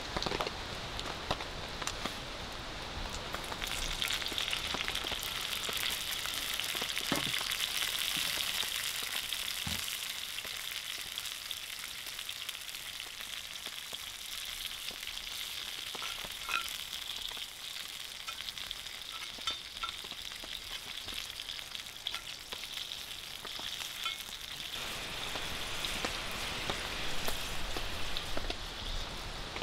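Food frying in oil in a cast iron skillet over a wood fire: a steady crackling sizzle with a few sharp pops. About 25 seconds in the sizzle grows fuller as liquid is poured into the pan.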